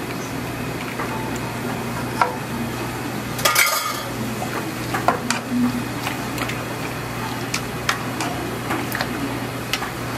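Orange plastic ladle stirring noodles through a pan of simmering broth, knocking and scraping against the metal pan in scattered clicks, with a louder cluster of knocks about three and a half seconds in. A steady hiss and low hum run underneath.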